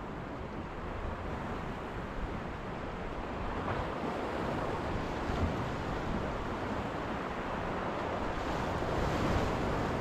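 Black Sea surf washing steadily against the shore, with wind noise on the microphone, the wash growing a little louder toward the end.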